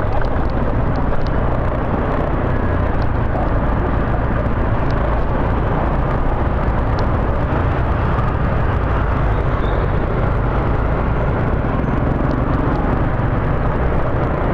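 Steady road noise from riding through city motorbike traffic: a constant low wind rumble on the microphone over the running of motorbike engines.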